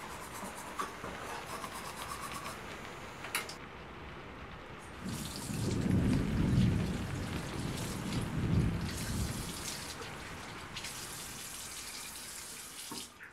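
Faint steady hiss with a single click about three seconds in, then a bathroom sink tap running, the water splashing over hands into the basin, louder from about five seconds in.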